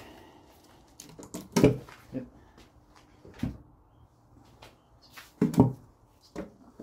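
A pry bar levering the oil pan off a 360 (5.9 L) Magnum V8 block. The pan breaks loose from the block with a few sharp metal knocks about two seconds apart and fainter ticks and scrapes between them.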